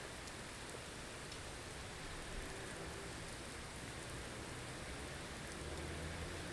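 Blizzard ambience: a steady, even hiss of wind-driven snow, with a faint low hum underneath that swells slightly near the end.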